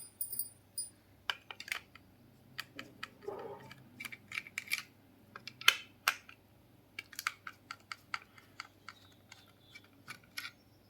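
A small screwdriver unscrewing screws from a plastic speaker housing: irregular sharp clicks and ticks of the bit and screws, with handling of the casing.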